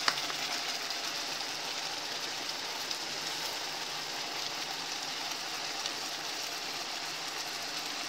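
Chicken wings frying in a pan, sizzling with a steady hiss, and a single light click of a utensil right at the start.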